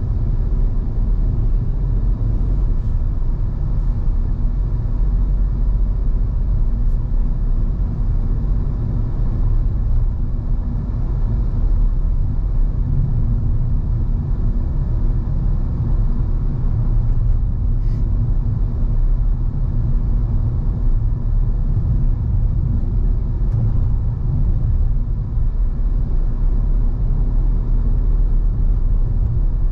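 A car being driven, a steady low rumble of engine and road noise, with a faint click a little past the middle.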